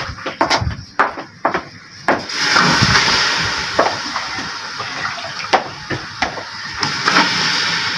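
Raw beef being washed by hand in a bowl of water: splashes and wet knocks as pieces are handled and dropped into a large aluminium pot. From about two seconds in, a steady watery rush runs underneath.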